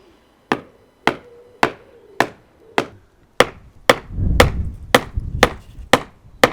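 Steady hammer blows on the steel toe cap of a safety boot, about a dozen sharp strikes at roughly two a second, getting louder about halfway through.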